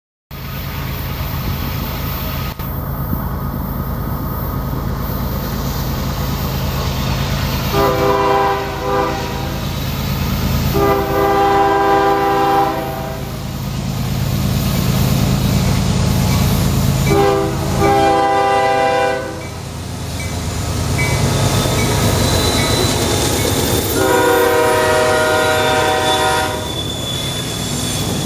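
CSX diesel locomotive leading a double-stack freight train, its engine rumbling steadily as it approaches. It sounds its multi-note air horn in four long blasts spread over the approach, and near the end the container cars roll past.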